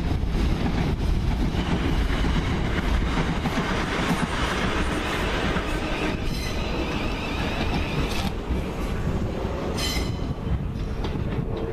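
South Western Railway electric multiple-unit trains running over the junction's pointwork: a steady rumble of wheels on rail as one train passes and a Class 707 Desiro City unit comes in. There is a brief high squeal of wheels about ten seconds in.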